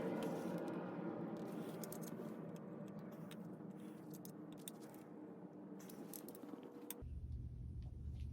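Light metallic clinks and rattles of small bike parts and tools being handled, over a steady background that slowly fades; about seven seconds in it cuts to a low steady hum.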